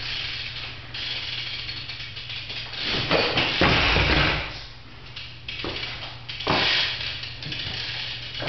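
BMX bike's rear hub ticking as it freewheels, with tyres scuffing and landing on a concrete floor during tailwhip attempts. It is loudest in three stretches: at the start, in the middle and about two-thirds through.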